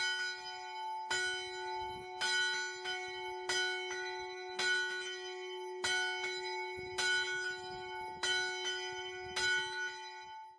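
A single monastery bell in an open wooden belfry tolling, struck about once a second, its tone ringing on between strokes. The ringing cuts off suddenly near the end.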